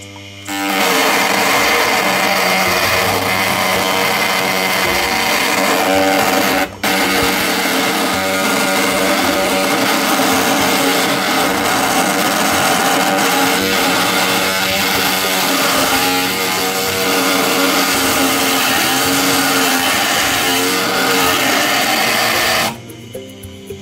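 Mini wood lathe running with a poplar dowel turning in its chuck: a loud, steady machine noise that starts about half a second in, cuts out for an instant near seven seconds, and stops just before the end.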